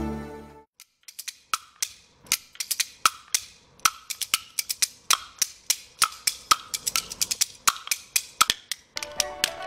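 Kuaiban bamboo clappers played solo, a large two-piece board and a set of small boards clacked together. After background music fades out, sharp wooden clacks start about a second in and run in a quick, uneven rhythm with occasional louder accents.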